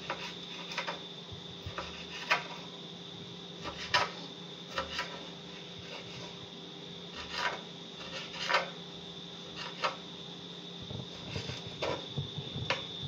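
Kitchen knife slicing a tomato on a wooden cutting board: sharp, irregular taps as the blade meets the board, about one a second, over a steady background hum.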